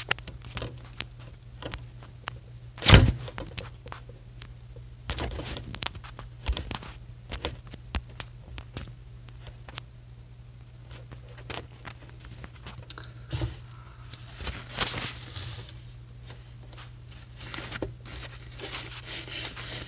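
Handling noise from a phone camera being picked up and repositioned: scattered clicks, scrapes and rustles against its microphone, with a sharp knock about three seconds in, over a steady low hum.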